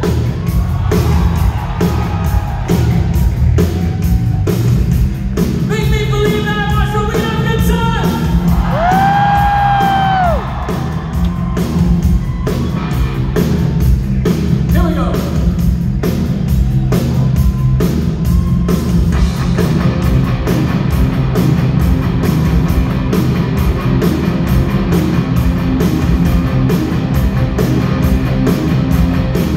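Live rock band in an arena, with drums, electric guitars and a male lead singer through the PA, heard from the audience seats. Sung lines over a steady drum beat take up the first part, with one long held note about nine seconds in. From about nineteen seconds the band plays on with guitars and no clear vocal line.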